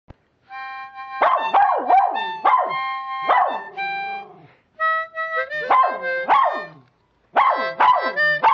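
A dog howling along to a harmonica: the harmonica holds steady chords while the dog gives short howls that each slide down in pitch, several in a row. Both stop briefly twice.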